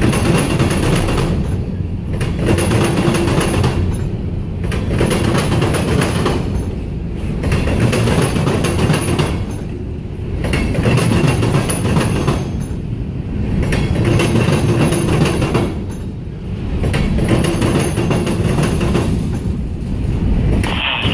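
Empty covered hopper cars of a freight train rolling past at close range: a continuous rumble of steel wheels on rail that swells and dips about every three seconds as each car goes by.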